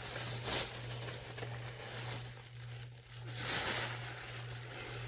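Packaging crinkling and rustling as items are handled, with two louder rustles about half a second in and around three and a half seconds in, over a low steady hum.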